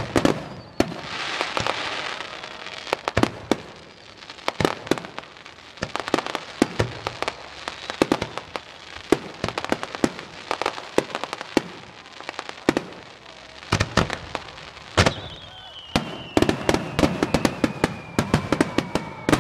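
Aerial fireworks bursting: a rapid, irregular string of bangs and crackling. About three-quarters of the way through, a long whistle rises above them and falls slowly in pitch.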